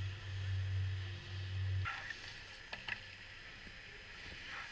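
Steady low rumble of wind buffeting an outdoor camera microphone, cutting off abruptly a little under two seconds in. A few faint taps follow in quieter air.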